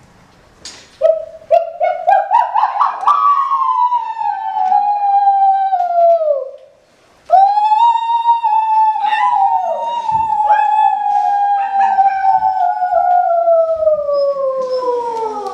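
A single wailing pitched tone that steps upward in small jumps, then slides slowly down; it breaks off briefly about halfway and comes back as a second long falling slide, with light clicks over it.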